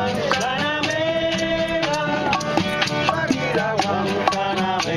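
Live Cuban salsa-style band music: a singer holding long notes over maracas and a steady percussion beat.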